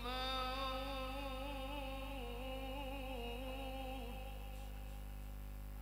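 A man's voice reciting the Quran in melodic tilawah style through a microphone and PA, holding one long, gently wavering note for about four seconds before it fades out. A steady electrical mains hum runs underneath and is left on its own after the note ends.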